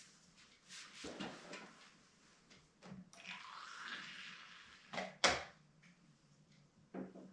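Hot water poured from a thermos into a chimarrão gourd, the pitch rising as the gourd fills, among small clicks and knocks of the gourd and thermos being handled. A sharp click a little after the pouring is the loudest sound.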